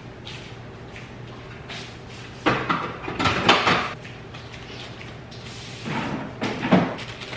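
Kitchen clatter as things are handled at the counter and stove: two clusters of knocks and rattles, about two and a half to four seconds in and again around six seconds in, over a steady low hum.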